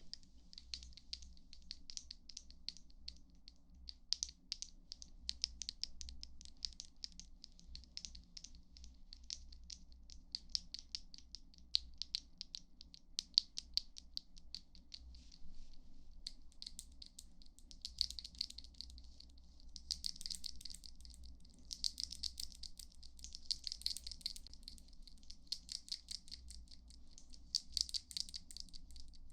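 ASMR trigger sounds: a fast, steady run of soft, crisp clicks and crackles, thickening into denser bursts in the second half.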